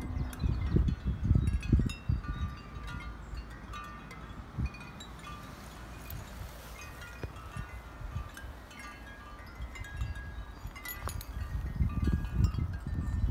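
Scattered, bright chime-like ringing tones, many short notes at different pitches, with gusts of wind buffeting the microphone in the first couple of seconds and again near the end.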